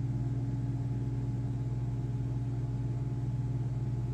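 Steady low mechanical hum, even in level and pitch throughout.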